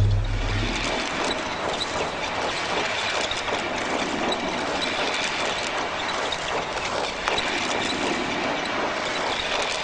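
Steady mechanical clatter of many small clicks and rattles over a dense hiss, like machinery running.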